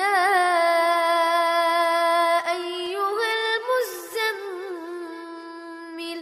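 A single voice chanting Qur'anic recitation in melodic murattal style: one long held phrase of about six seconds with ornamented turns in pitch, starting abruptly and ending near the end.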